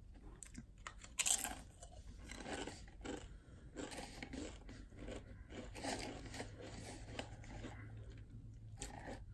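A Pringles potato crisp bitten with one loud crunch about a second in, then chewed with a run of quieter, irregular crunching.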